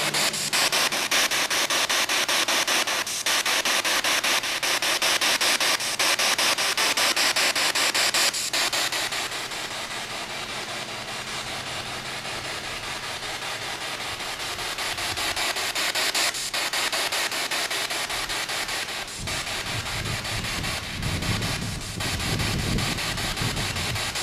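SB7 spirit box sweeping rapidly through radio stations: a steady hiss of static chopped into fast, even pulses. Some lower, muffled sound comes through near the end.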